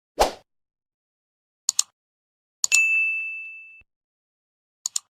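Edited-in sound effects: a short burst of noise, then a pair of quick clicks, a single high ding that rings and fades over about a second, and another pair of clicks near the end.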